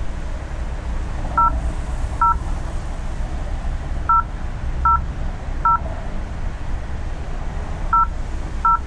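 Door intercom keypad beeping as its buttons are pressed: eight short two-tone beeps, all alike and unevenly spaced, over a steady low street rumble.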